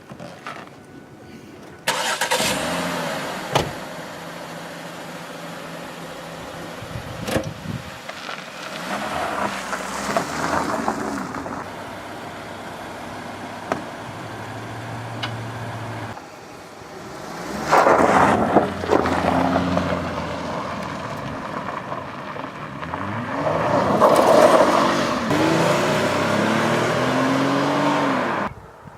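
A car running and driving, starting abruptly about two seconds in. It gets louder about two-thirds of the way through and again near the end, where the pitch rises and falls.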